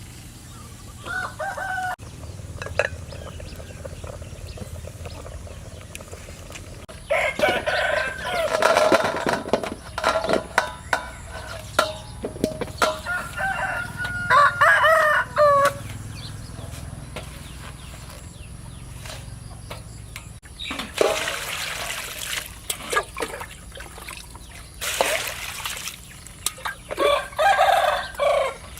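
A rooster crowing several times, with hens clucking, and a few short noisy bursts in between.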